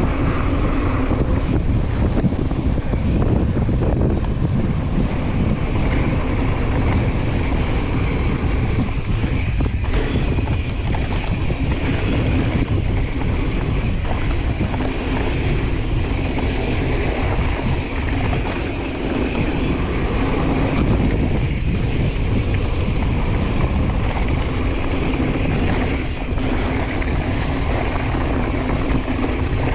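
Mountain bike riding fast along a dirt and gravel trail: wind rushing over the microphone, mixed with the tyres rumbling on the dirt. It is a steady, loud noise.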